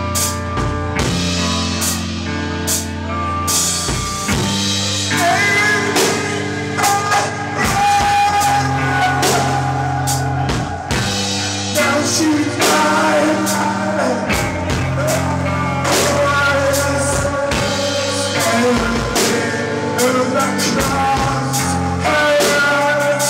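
Rock band playing: electric guitar over a full drum kit, with frequent snare and cymbal hits and bending, sustained notes on top.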